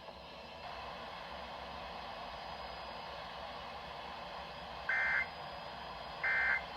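Emergency Alert System end-of-message signal: short bursts of two-pitch digital data tones, two of them about 1.3 seconds apart starting about five seconds in, over a steady hiss.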